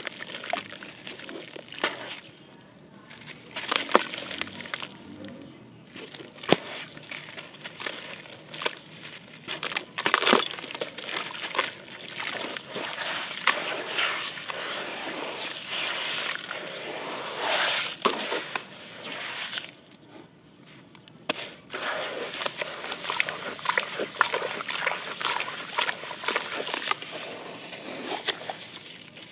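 Wet sandy clay block crumbling and squelching as hands squeeze and mash it into paste in a basin of water, with sloshing and crackling. It goes in irregular bursts with brief lulls around 3 and 20 seconds in.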